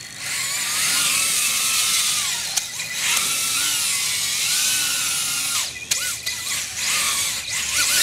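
Small FPV cinewhoop quadcopter in flight, its brushless motors and ducted propellers whining, the pitch rising and falling with throttle. The whine dips and turns choppy a little before three-quarters of the way through, then comes back strongly near the end.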